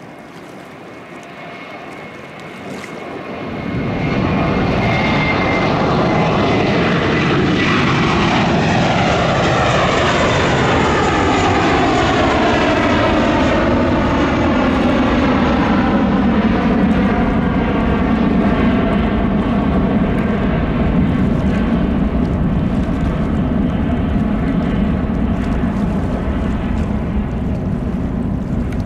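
Twin turbofan engines of a British Airways Airbus A320-family airliner at takeoff thrust. The noise swells about four seconds in and stays loud and steady as it rolls and climbs away, with a high whine and sweeping tones that slowly fall in pitch as it passes.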